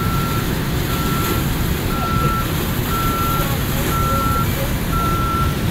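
Back-up alarm on construction machinery beeping steadily, about one beep a second, over a steady low rumble.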